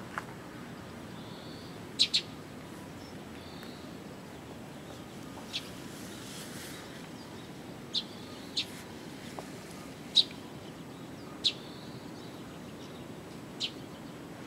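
A small bird chirping short, sharp single notes every second or two, once as a quick double note, over a steady outdoor background.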